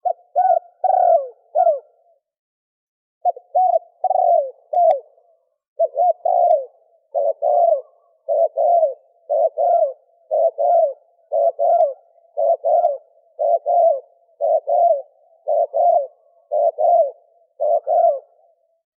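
Male spotted dove cooing: a phrase of two or three low coos repeated about once a second, with a short pause about two seconds in.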